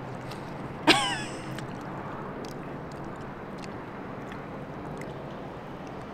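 Someone chewing a mouthful of pizza, with faint scattered mouth clicks, over a steady outdoor background hum. About a second in comes one short, loud vocal sound that falls in pitch.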